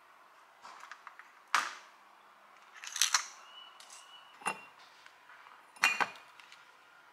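Metal binder clips clicking as oil paint tubes are taken off a pegboard, then the tubes knocking against a ceramic jug: a few separate sharp clicks and knocks, with a short rustle about three seconds in.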